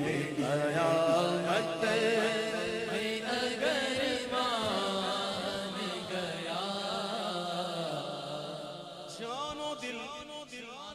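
A male voice singing an Urdu naat in a slow, drawn-out chant, with a steady low drone beneath it. It grows quieter in the last few seconds.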